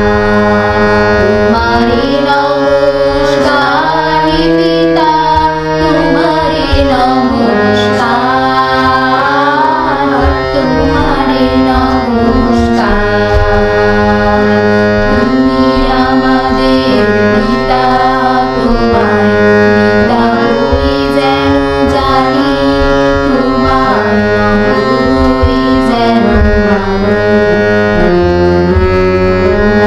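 Two women singing a Bengali song together to a harmonium, which holds steady chords under the wavering sung melody.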